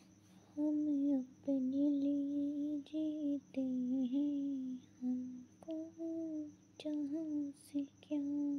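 A woman humming a melody in short phrases, her pitch gliding up and down between breaks, over a faint steady high-pitched whine.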